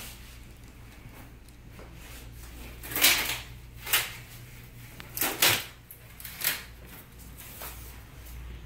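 Several short, hissing spritzes from a hand-pump spray bottle, roughly a second apart, with two close together in the middle.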